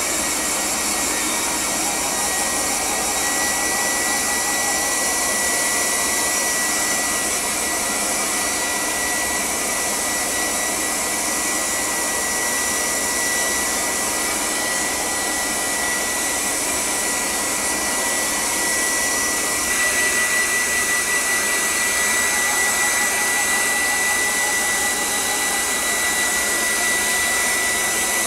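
Handheld hair dryer blowing on a small dog's wet coat: a steady rush of air with a thin high whine over it, getting a little louder about two-thirds of the way through.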